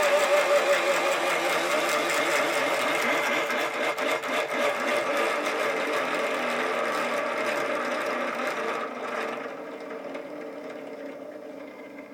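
Electric motor spinning a high-density wooden flywheel that drives a DC gear-motor generator through a flexible shaft, running with a steady mechanical whir. About nine seconds in it grows quieter and its higher part drops away.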